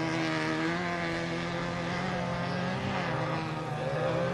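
Off-road race vehicle's engine running steadily, its pitch holding fairly even with small rises and dips.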